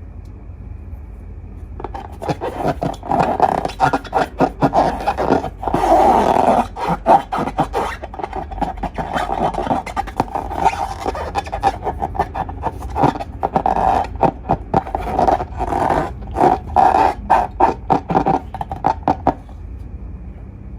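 Slime and long balloons being squeezed and worked by hand, with a dense run of crackles and squeaks that starts about two seconds in and stops shortly before the end.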